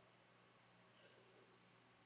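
Near silence: room tone during a pause in speech.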